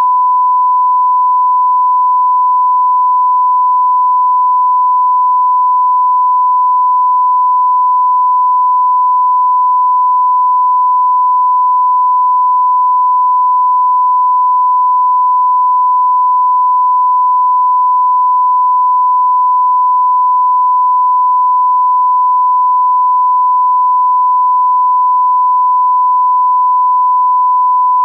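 Continuous 1 kHz test tone of the kind broadcast with a television test card: a single pure beep held at one pitch and level, without a break.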